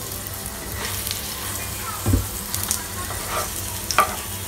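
Hot oil sizzling steadily as a stuffed paratha shallow-fries in a frying pan. A few light knocks and scrapes come from a wooden spatula pushing the paratha around the pan.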